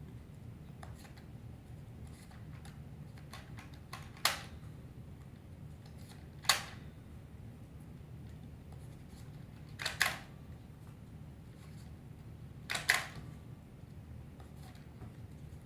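Plastic clicks of foam darts being loaded into the rotating cylinder of a Nerf N-Strike Barricade RV-10 blaster: four sharp clicks a few seconds apart, with fainter handling ticks between them.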